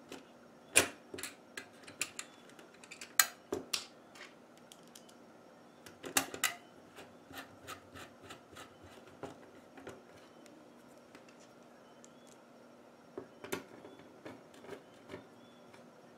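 A screwdriver driving small screws and metal parts being seated on an LCD monitor's metal frame: scattered sharp clicks and light knocks, the loudest about a second in, about three seconds in, around six seconds and near the end.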